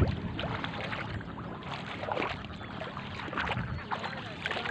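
Water sloshing and splashing with many short scattered sounds, over a low steady hum.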